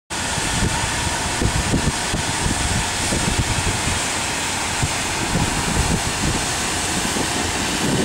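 Wind blowing across the camera microphone: a steady rushing noise with low, irregular gusty rumbles that come and go.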